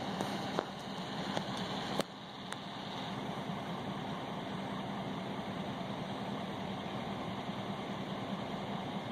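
An engine idling steadily, with a few light clicks and knocks in the first couple of seconds.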